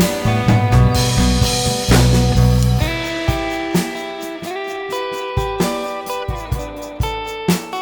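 Background music: guitar with bass and drums, with regular sharp drum hits in the second half.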